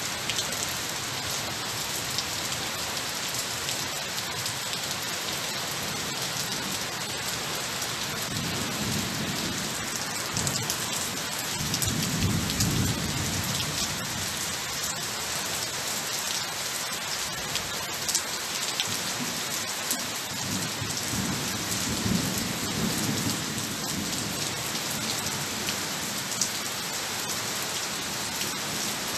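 Steady rain falling, a constant hiss, with a few low rumbles swelling and fading in the middle stretch.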